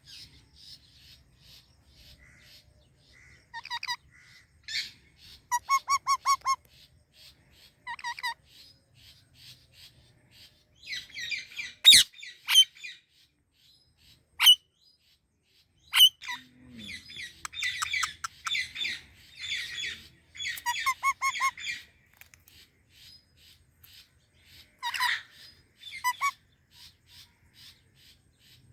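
Indian ringneck and Alexandrine parakeets chirping and squawking. Short runs of quick repeated notes alternate with a few sharp single screeches and bursts of dense chatter, busiest in the middle and second half.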